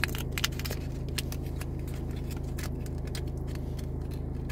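Crackles and clicks of a plastic foil blind-bag packet being handled, a quick cluster at first and then scattered ones every second or so, over the car's steady low hum.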